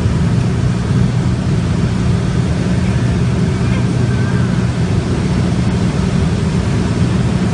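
Light aircraft's engine and propeller drone, heard from inside the cabin: a loud, steady drone with a low hum that doesn't change.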